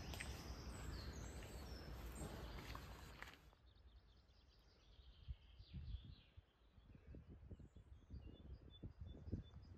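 Quiet outdoor ambience: a steady rush of wind-like noise that cuts off abruptly about three and a half seconds in, then faint bird chirps, with a quick run of repeated chirps near the end, over scattered soft thumps.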